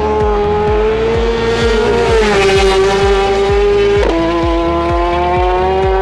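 Racing motorcycle engine at high revs under full throttle, its pitch climbing slowly and dropping sharply at upshifts about two seconds and four seconds in. A music track with a steady bass beat runs underneath.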